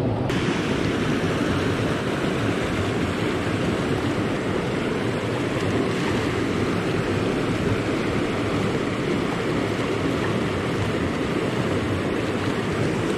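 Water of a shallow trout-stream riffle rushing steadily over rocks, loud and close.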